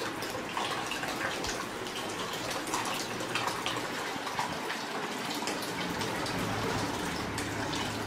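Water from a small tabletop fountain's jet splashing steadily into a shallow glass bowl of water, with a continuous patter of small drops and a faint low hum underneath.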